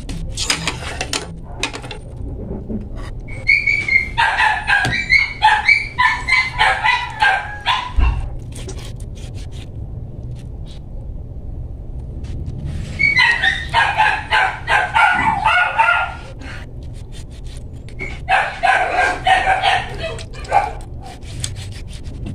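A dog barking in three bouts of rapid, repeated barks, with light sharp taps of a knife on a plastic cutting board as raw chicken is cut.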